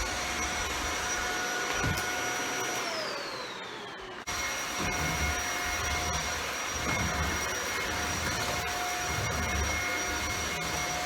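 Shark Powered Lift-Away Speed Rotator upright vacuum cleaner running with a steady motor whine and airflow rush, with low rumbles from the head being pushed across the floor. About three seconds in, its pitch and level fall away for about a second, then the full running sound cuts back in abruptly.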